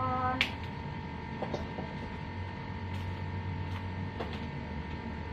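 Kitchen work at a gas stove as a wok is set up to boil water: one sharp click about half a second in, then a few faint knocks, over a steady low hum.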